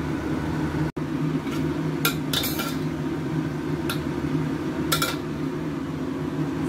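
A metal spoon clinks a handful of times against a steel wok and a ceramic serving bowl as stir-fried Chinese broccoli is dished up, over a steady low hum.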